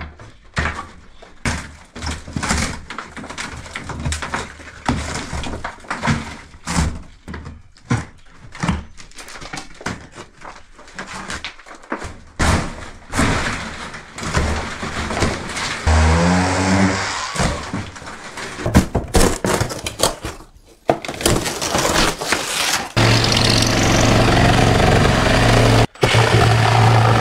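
Demolition of a plasterboard and timber-panelled wall by hand: a long run of cracking, splintering and thuds as boards are torn and broken off. About two-thirds of the way in, a steady, loud motor-like drone starts and continues.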